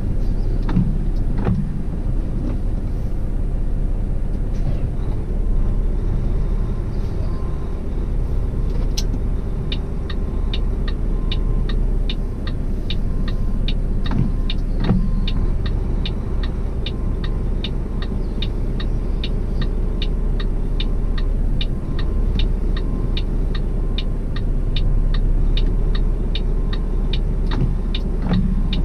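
Truck cab sound: the engine runs as a steady low rumble. About a third of the way in, a rapid, regular clicking starts, about three clicks a second, along with faint repeated beeps, and both go on to the end as the rig is manoeuvred into position at the delivery spot.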